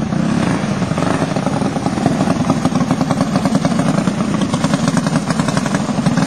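Go-kart engines running. From about two seconds in, the sound settles into a rapid, even pulsing.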